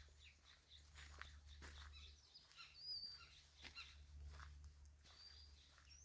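Near silence: faint footsteps on forest ground, with a few faint, short, high bird chirps about halfway through and again near the end.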